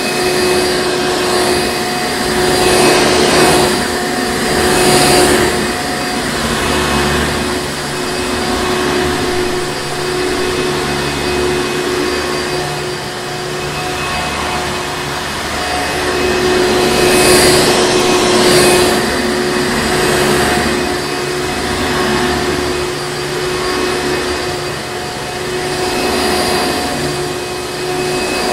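Hoover Encore Supreme upright vacuum cleaner running continuously, its motor hum holding a steady pitch. A rush of air swells and fades every few seconds over it.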